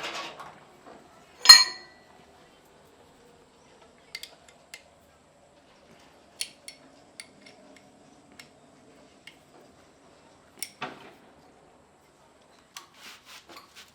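Scattered clinks and knocks of hard objects being handled, with one loud clank about a second and a half in and lighter clicks after it.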